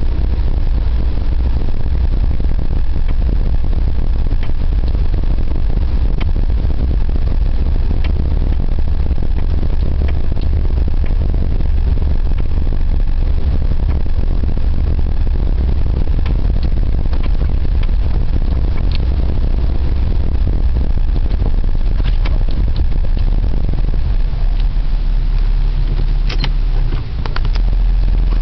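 Daewoo Lanos on the move: a steady low rumble with scattered short knocks from the suspension, more of them near the end.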